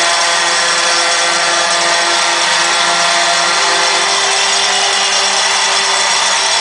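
Arena crowd cheering and making noise, a loud continuous roar with a few steady droning tones underneath.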